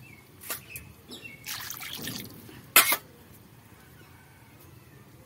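Thin curry bubbling in a steel kadai over a flame, with a single loud, sharp clack about three seconds in.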